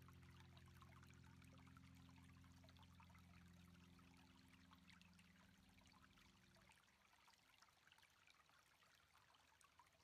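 Very faint wash and fizz of surf on a sandy beach, under a low steady tone that stops about seven seconds in.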